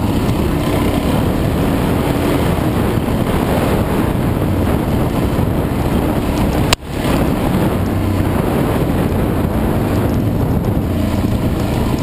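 Off-road motorcycle engine running under load on a rough dirt trail, with heavy wind buffeting the microphone. A single sharp click and a momentary drop in sound come about seven seconds in.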